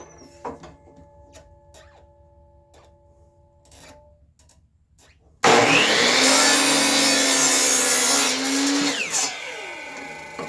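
Power miter saw switched on about halfway through, cutting through a wooden board for about three seconds, then winding down with a falling whine. Before it, a few light knocks of handling wood over quiet background music.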